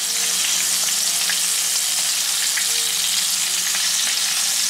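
Breaded chicken cutlet shallow-frying in oil in a pan: a steady sizzle with a few faint pops.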